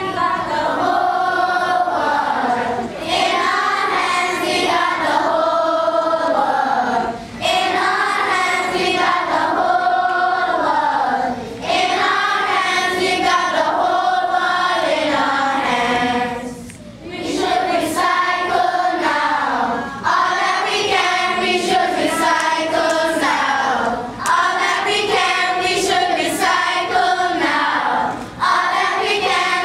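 A children's choir singing together, in phrases broken by short breath pauses every few seconds.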